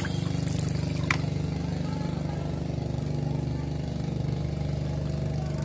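A small engine running steadily with an even drone, and a single sharp click about a second in.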